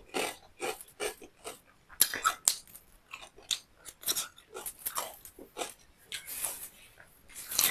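A person eating close to the microphone: wet chewing and lip smacks, a run of short, irregular smacks several times a second.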